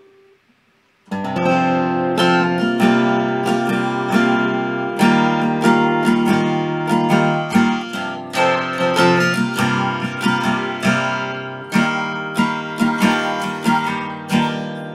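Solo acoustic guitar with a capo, played in a flowing picked chord pattern that starts suddenly about a second in; the last chord rings out near the end.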